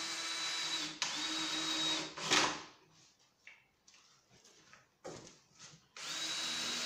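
Cordless drill running at steady speed in two bursts of about a second each, drilling pilot holes for the hinge screws in a door leaf. A sharp knock follows, then light handling knocks, and the drill starts again near the end.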